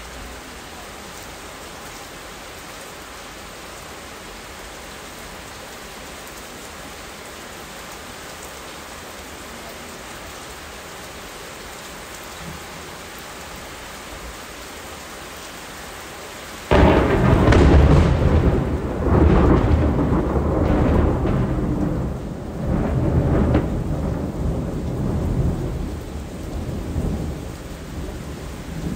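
Steady hiss of rain. About two-thirds of the way through, a loud, low rumble of thunder cuts in suddenly and swells and fades several times over the rain.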